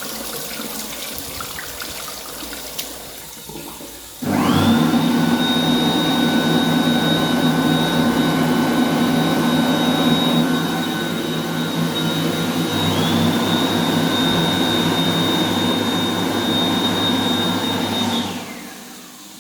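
Anda Series 9000 (Flowsave Tempesta) hand dryer starting suddenly about four seconds in, after a softer hiss. It runs loud and steady with a high whine, sags briefly about halfway and picks back up. Near the end it stops and spins down, the whine falling away.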